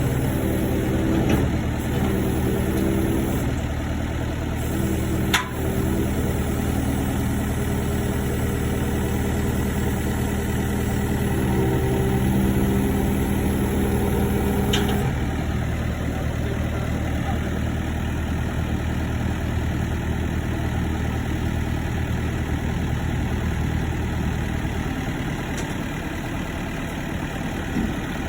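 Heavy diesel engine running steadily at idle, with a single sharp click about five seconds in. A higher tone layered over the engine stops abruptly about halfway through, and the low hum shifts near the end.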